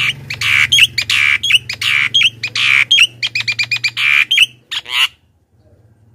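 Javan myna (jalak kebo) in full song: a rapid run of harsh squawks, chatters and sharp short notes, stopping about five seconds in.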